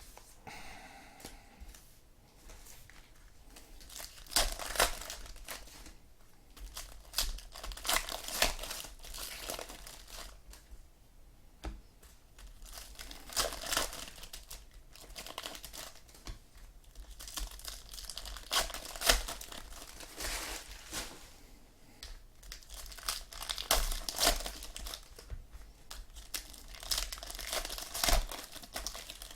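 Plastic wrappers of 2015 Diamond Kings baseball card packs crinkling and tearing as packs are handled and ripped open, in repeated bursts a few seconds apart.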